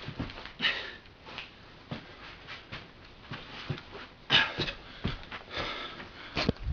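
Irregular swishes and scuffs of a person turning and pivoting through solo judo throw-entry drills (tai-otoshi into sode-tsurikomi-goshi) on a carpet, mixed with sharp, hard breaths of exertion. The strongest bursts come about half a second in, around four and a half seconds in, and near the end.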